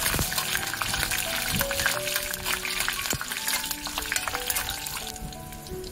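Hot oil sizzling and crackling in a kadai as a spatula stirs a tempering of mustard seeds, dals, peanuts and chillies. The sizzle eases somewhat near the end. Soft background music plays underneath.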